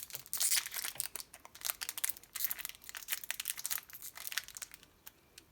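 Foil Pokémon booster pack wrapper crinkling as it is handled and opened: a dense run of quick, irregular crackles that stops about four and a half seconds in.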